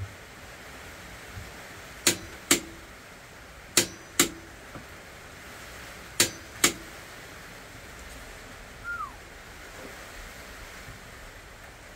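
Click-type torque wrench set to 40 foot-pounds breaking over on a stock Cleveland oil pump drive shaft: three sharp double clicks, each pair less than half a second apart, spaced about two seconds apart. Each click-over means the set torque was reached, so the shaft is holding 40 foot-pounds.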